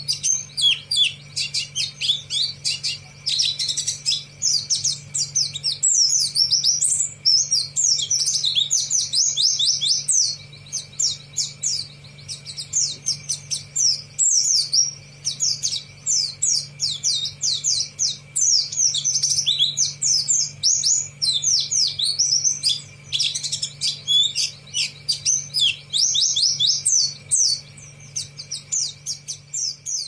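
Caged white-eye singing continuously: a rapid, unbroken twitter of quick high chirps that sweep up and down, the bird practising a newly learned song. A steady low hum sits underneath.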